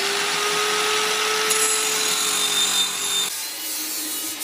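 Angle grinder with a cut-off disc cutting a metal pipe clamped in a vise: a steady motor whine over the hiss of the disc in the metal. About three seconds in the sound drops and thins.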